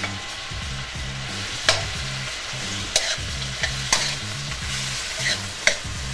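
Shrimp and mushrooms sizzling in butter in a nonstick skillet while being stirred. A steady frying hiss is broken by several sharp clicks from the stirring.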